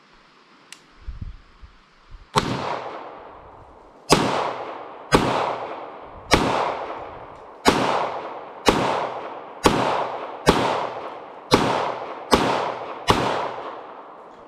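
B&T APC9K Pro 9mm pistol fired semi-automatically, about a dozen single shots at a steady pace of roughly one a second, each followed by a short decaying echo. A couple of faint handling knocks come just before the first shot.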